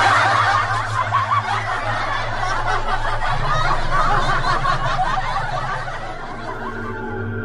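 Dubbed-in laughter sound effect: several voices snickering and chuckling together, loudest at the start and dying away about six seconds in, over a steady low hum.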